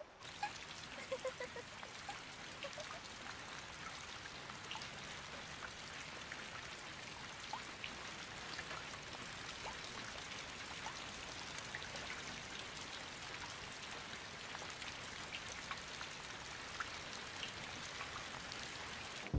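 Steady rain falling: an even hiss of rain with scattered individual drops ticking throughout.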